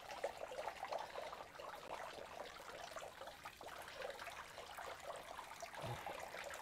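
Water trickling and splashing into a concrete catfish hatchery tank from its inlet pipe, a steady faint flow kept running constantly so the water stays fresh for the newly hatched fry. A brief low knock comes near the end.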